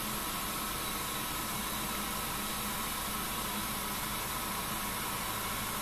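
ProtoTRAK CNC bed mill milling an arc in quarter-inch aluminum plate under program control. The spindle and cutter run steadily, with a few faint steady tones over an even hiss and no change in pitch or level.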